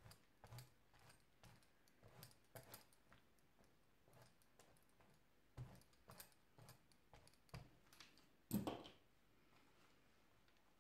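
Faint clicks and light rubbing of a small rubber brayer being rolled over an inked clear stamp on paper, with one louder knock near the end.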